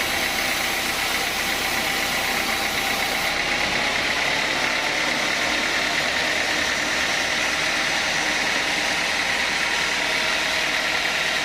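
Sawmill saw running steadily while sawing teak: a constant high tone over even machine noise, with no pauses.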